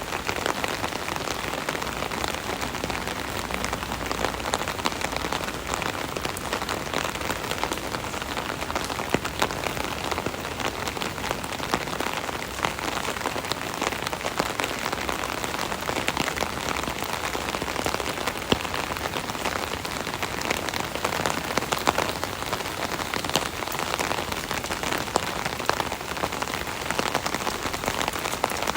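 Steady rain drumming on an umbrella's canopy overhead: a dense patter of drops with scattered louder single drips.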